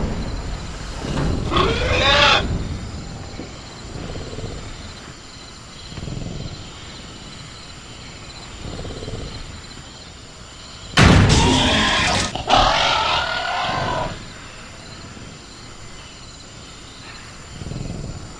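Sound-designed velociraptor calls: a short growling call that bends up and down about two seconds in, then a louder screeching growl that starts abruptly about eleven seconds in and lasts about three seconds. Crickets keep up a thin steady high chirring underneath.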